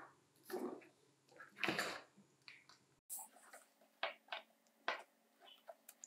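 Faint, scattered small clicks and taps of hand work on a battery pack: wired battery cells being handled on a wooden workbench, and pliers gripping the wire at a cell's terminal.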